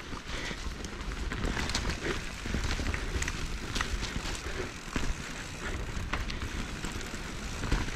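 Mountain bike rolling along a rough trail: steady tyre and trail noise with low rumble, and many scattered clicks and rattles.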